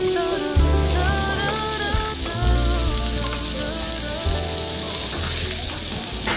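Food sizzling as it cooks, a steady hiss, under background music with a bass line and melody.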